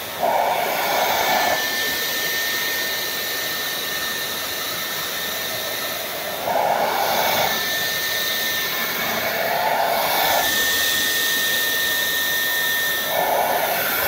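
Dyson V12s Detect Slim cordless stick vacuum running with a small motorised brush tool pressed into a folded blanket: a steady rush of suction with a faint high whistle. The sound swells briefly four times, near the start, about halfway, at about ten seconds and near the end.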